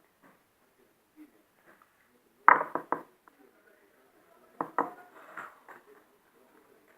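Hard objects knocking against a container as slime-making things are handled: three quick sharp knocks about two and a half seconds in, then two more near the five-second mark, with light rustling between.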